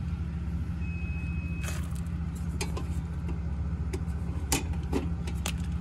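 Vehicle engine idling with a steady low hum, with a few sharp clicks and knocks and one short high beep about a second in.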